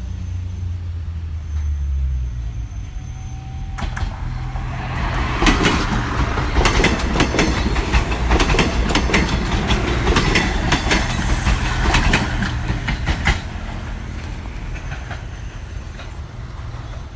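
A diesel PNR train passes close by. Its engine drones at first, then from about four seconds in the wheels clatter in a rapid run of clicks over the rail joints, with a rushing noise. It is loudest in the middle and eases off after about thirteen seconds.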